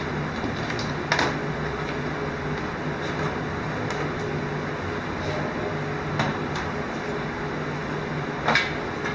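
Steady hum and hiss of a running machine, with a few short knocks; the loudest come about a second in and near the end.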